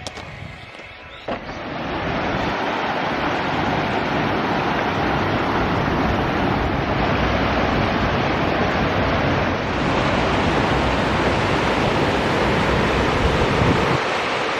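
Mountain stream water rushing steadily over rocks, setting in loud about a second and a half in.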